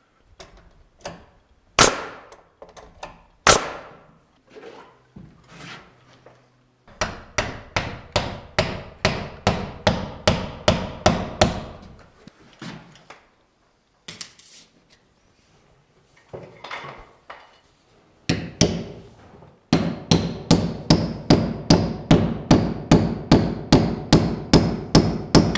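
Claw hammer striking wooden shims and a door jamb: a few single knocks, then two long runs of quick, even blows, about three a second.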